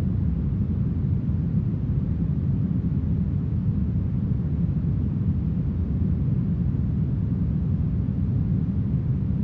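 Steady, smoothed brown noise: an even, deep rushing hiss, heavy in the low end and dull at the top, with no gusts, changes or breaks.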